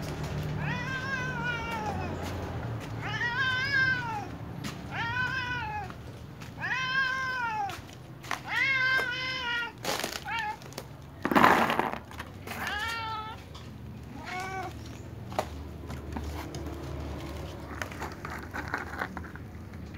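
Domestic cat meowing over and over at feeding time, about eight drawn-out meows, the last few shorter and fainter. There is a brief loud rustle about halfway through.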